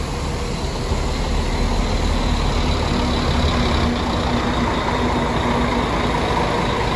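Diesel engine of a double-decker coach running as it moves off slowly, a steady low rumble that grows a little louder about a second in.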